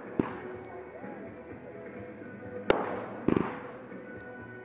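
Aerial firework shells bursting: a sharp bang just after the start, another about two and a half seconds in, then a quick double report a moment later, each dying away in an echo. Steady music plays underneath.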